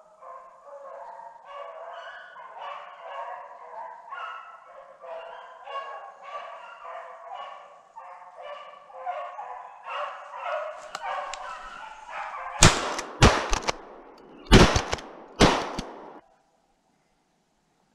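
Hunting dogs baying over and over while running a snowshoe hare. About twelve seconds in, a shotgun fires a rapid string of loud shots, about five in three seconds.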